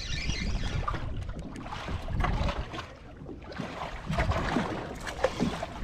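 Wind buffeting the microphone and water sloshing against a boat, with short rattles and clicks from a spinning reel being cranked as a small fish is reeled in.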